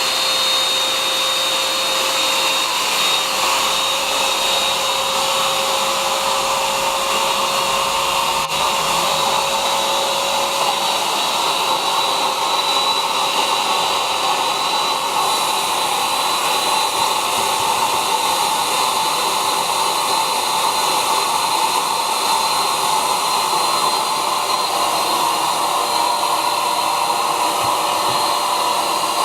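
A 600 W electric air pump running steadily: a continuous rush of blown air with a faint steady motor whine over it.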